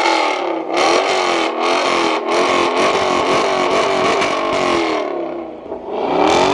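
Dodge Challenger R/T's 5.7-litre HEMI V8 revved repeatedly through a freshly installed Borla ATAK cat-back exhaust, the pitch rising and falling with each blip. The revving eases about five seconds in, then picks up again with another rev near the end.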